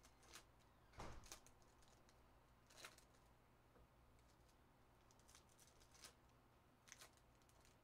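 Faint crinkling of foil trading-card pack wrappers and soft clicks of cards being handled and stacked, in a few short rustles, the loudest about a second in.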